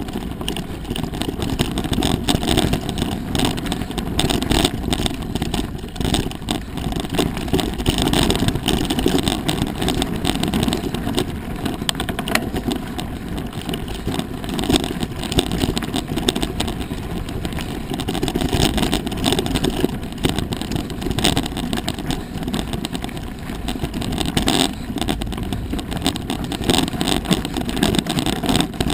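Wind buffeting an action camera's microphone while a mountain bike rolls over a stony dirt trail, with a constant rumble and frequent small knocks and rattles from the bike and the loose rocks.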